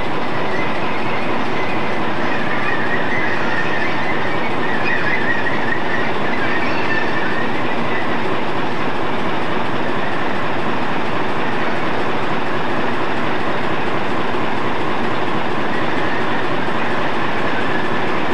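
A steam locomotive and its train running past, with steady running noise and a high wheel squeal from about two to eight seconds in.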